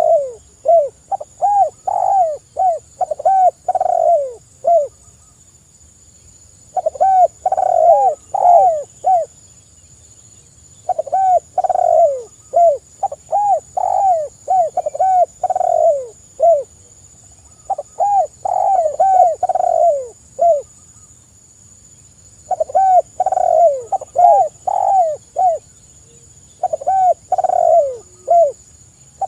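Spotted doves cooing: runs of quick, arched coos, about three a second, each run lasting a few seconds with short pauses between, six runs in all.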